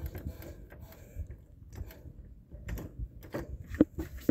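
Scattered mechanical clicks and knocks from a claw machine being worked. The sharpest come in the last second.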